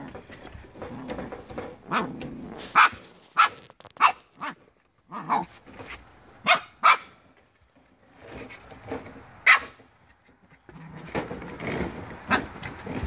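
Corgi puppy barking in short, separate yaps, about ten in all, with a pause of a couple of seconds partway through.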